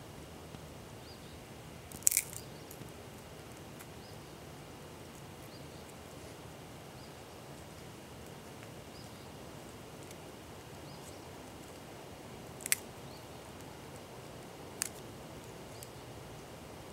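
Small twig fire burning under a canteen cup, giving a few sharp crackles over a quiet steady background: a loud one about two seconds in, and others near thirteen and fifteen seconds.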